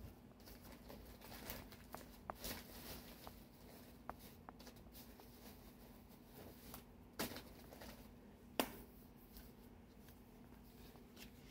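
Faint, scattered clicks, taps and rustles of hands rummaging through cardboard eyeshadow palettes, with two sharper knocks about seven and eight and a half seconds in.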